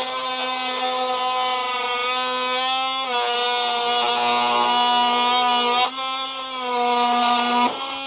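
DeWalt XR cordless oscillating multi-tool with a wood blade, cutting through a 1x1 wooden board: a steady, high buzzing drone. Its pitch sags slightly and it gets louder under load, and it shifts back up near the end as the blade breaks through the wood.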